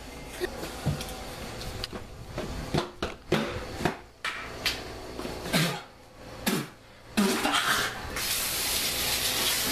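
A run of knocks and bumps from a handheld camera being carried at a hurry. About eight seconds in, a bathroom sink tap is turned on and water runs steadily.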